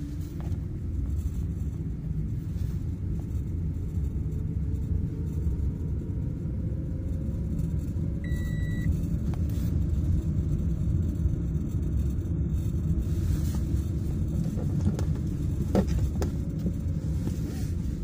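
Car cabin noise while driving: a steady low rumble of road and engine. A short electronic beep sounds about eight seconds in, and a sharp click comes near the end.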